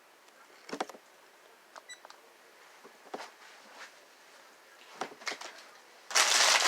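A few scattered light clicks and taps, then loud crinkling of a plastic candy bag being handled, starting near the end.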